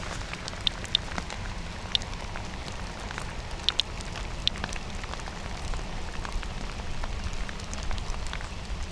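Radiation Alert Inspector Geiger counter clicking at random, about one or two short ticks a second, each tick a detected radiation count, over a steady patter of rain.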